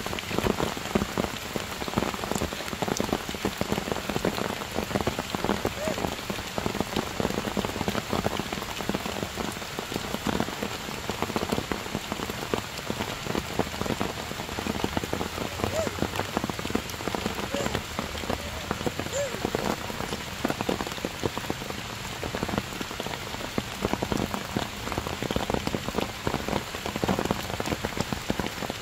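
Heavy rain falling steadily on wet stone and forest leaves, a dense spatter of separate drop hits over a constant hiss.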